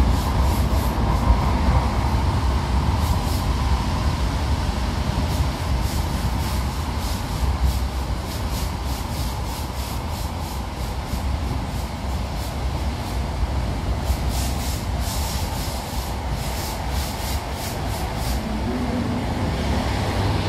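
SNCB classic electric multiple unit running on the line: a steady low rumble with groups of sharp clicks from the wheels and track.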